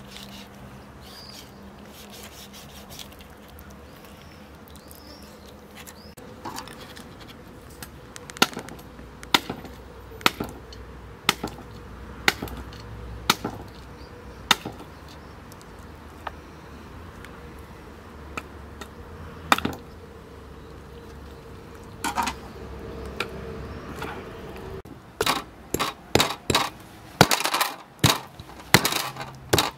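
A heavy knife chopping into a large fish head on a wooden cutting board: sharp single chops about once a second at first, then a quicker run of harder chops near the end.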